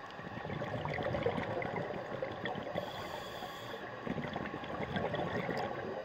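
Underwater, a scuba diver's exhaled regulator bubbles gurgling and crackling, swelling about half a second in and again around four to five seconds, over a faint steady whine.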